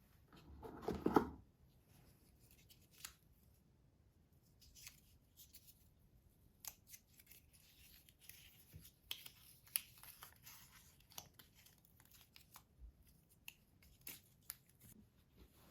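Faint handling noises: a louder rustle about a second in, then scattered small clicks, taps and soft rustling, like paper or plastic being torn or cut.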